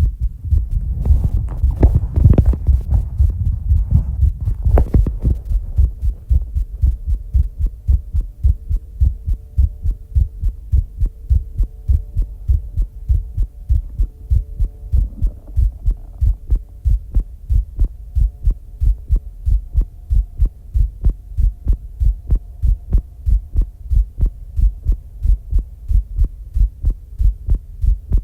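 A person's heartbeat after exercise: fast, even, low thumps that go on steadily. In the first five seconds two louder, breathy rushes of heavy breathing sound over it; after that only the heartbeat is heard, as during a held breath.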